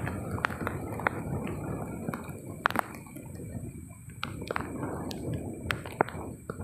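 Irregular sharp taps of raindrops hitting close to the microphone, several a second, over a steady low rush of rain and wind.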